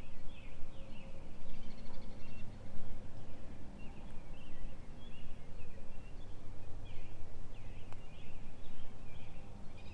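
Wild birds chirping and calling in many short, repeated notes, over a steady low rumble of outdoor background noise.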